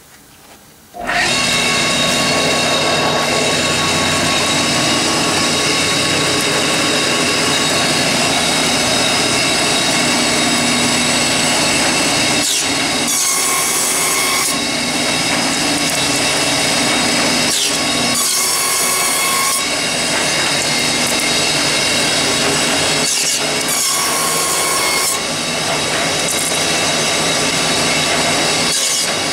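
WLS-1 wooden stick slicer coming on abruptly about a second in and running loud and steady. Its cutters slice wooden strips into round BBQ sticks, with a harsher, higher cutting noise rising several times as strips are fed through.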